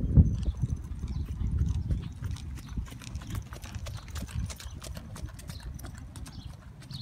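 A horse's hoofbeats as it is ridden on an arena's sand, a run of soft irregular footfalls that fade as the horse moves away.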